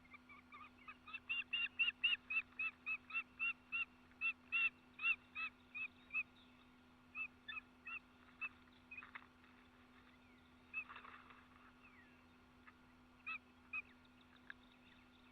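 A bird calling a quick run of short, clear, repeated notes, about four a second, loudest in the first half, followed by a few scattered notes later.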